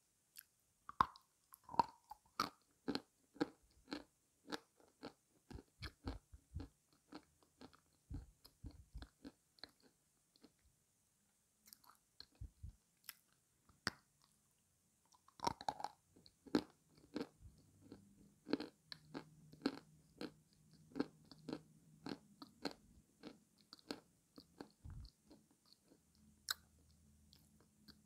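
Dry edible clay being bitten and chewed close to the microphone: many sharp crunches in quick succession, thinning out for a few seconds in the middle.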